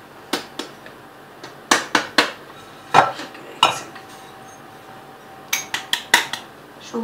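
Sharp clinks and knocks of a plastic container against a glass mixing bowl as icing sugar is tipped and tapped out of it, with a quick cluster of clinks near the end as an electric hand mixer's metal beaters are set into the bowl.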